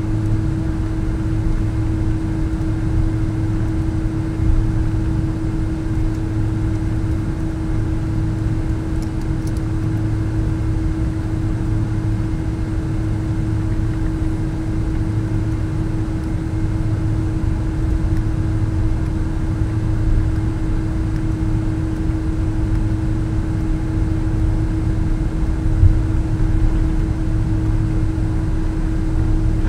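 Steady cabin noise inside a Boeing 777-200 airliner: a constant hum and drone from the engines and air systems over a low rumble, with one short knock near the end.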